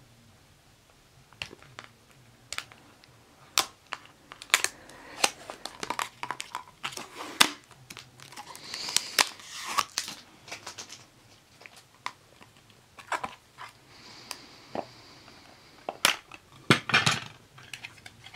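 A trading card pack being opened and handled by hand: crinkling and tearing of the wrapper, with scattered clicks and snaps from the cards. There is a longer crinkling rustle about nine seconds in and a busier burst of handling near the end.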